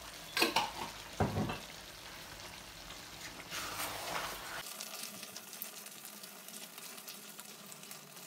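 Chicken in tomato masala and oil sizzling in a karahi over a high gas flame while it is stirred with a wooden spatula. Two knocks come in the first second and a half, and a louder scraping stir about three to four seconds in.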